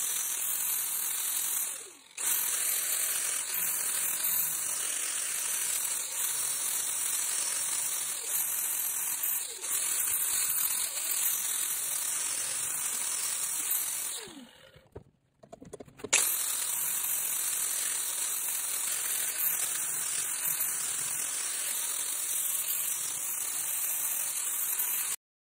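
Angle grinder with an abrasive disc running against the steel of an axe head, a steady hissing whir of grinding. It dips briefly about two seconds in, stops for about a second and a half past the middle, then starts again.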